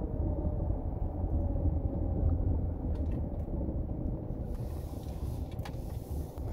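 Car driving slowly, heard from inside: steady low engine and tyre rumble with a faint steady hum. A light hiss joins about halfway through.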